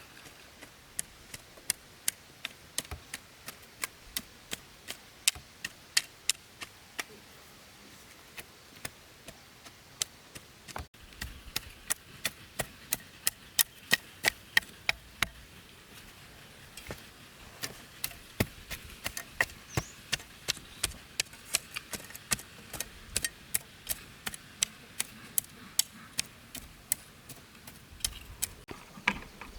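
Knife chopping on a cutting board in runs of quick, even strokes, about two or three a second, with short pauses between runs.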